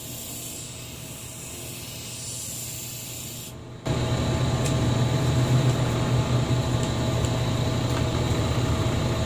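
A steady hiss, then an abrupt change about four seconds in to the louder, steady hum of an electric motor running on the sharpening bench.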